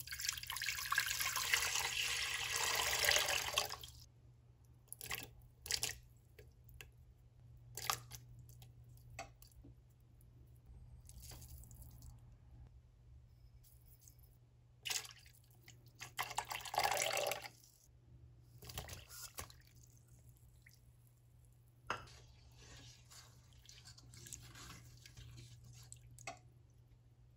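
Water poured into a cooking pot for about four seconds, followed by a string of short sounds as chopped onion, garlic and seasonings are dropped in. Another brief pour comes about seventeen seconds in, and there is faint stirring near the end.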